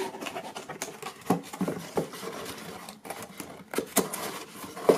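Corrugated cardboard box being closed and moved on a wooden table: flaps rustling, with scattered light knocks and taps and a louder knock near the end.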